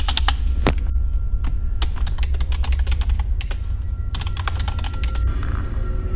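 Clusters of rapid, irregular clicks over a steady low rumble.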